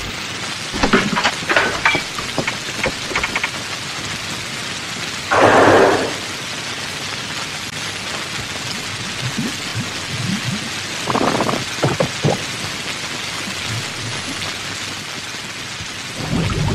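Heavy rain falling with a steady hiss, with a few short cracks in the first seconds and two louder rushing surges, about five and eleven seconds in.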